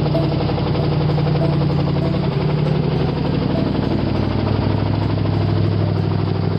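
The 272 cubic-inch Ford V8 of a 1955 Ford station wagon running steadily at idle, with its note dropping a little past halfway. The engine has a knocking connecting rod and is running on seven cylinders.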